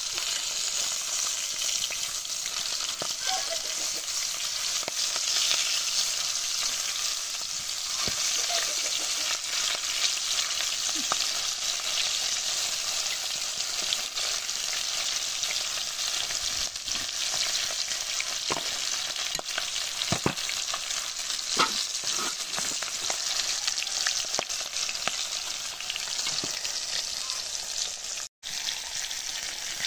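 Breaded fish pieces frying in hot oil in an aluminium frying pan: a steady sizzle, with occasional clicks and scrapes of a fork turning the pieces.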